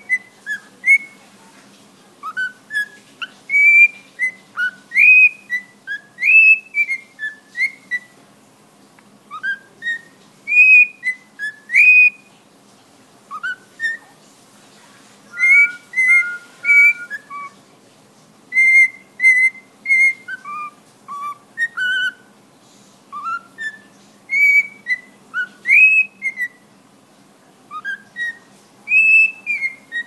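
Pet cockatiel whistling a learned tune: a long string of short, clear notes that slide up and down, grouped in phrases with brief pauses, some of them runs of repeated notes on one pitch.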